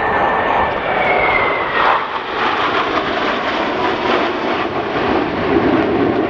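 Jet noise from a formation of eight KAI T-50 Golden Eagle trainers passing overhead, each powered by a single General Electric F404 turbofan: a steady, loud rush. A high whine drops slightly in pitch about a second in.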